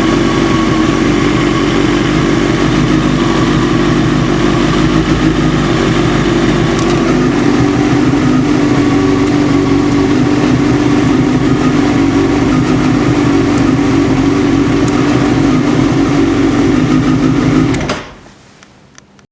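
Warm motorcycle engine idling steadily, then switched off about eighteen seconds in. The engine is being checked for a knock, which the owner finds gets quieter as it warms up.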